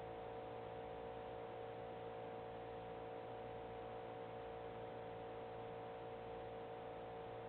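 Steady electrical hum with several constant tones and an even hiss, unchanging throughout; no knocks or thuds.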